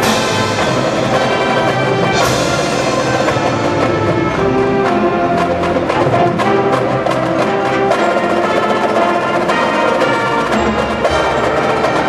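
Marching band playing live: brass ensemble with drums and front-ensemble mallet percussion, with crashes at the start and about two seconds in.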